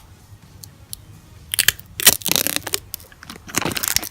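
Packaging wrap being torn and crinkled off a new camera part, in three spells of rustling, the longest about two seconds in.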